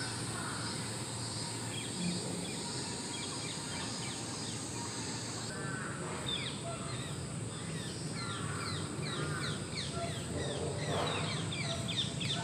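Birds calling in park trees: many quick, downward-sweeping chirps crowd in from about halfway through, with a few short lower calls, over a steady high-pitched hiss.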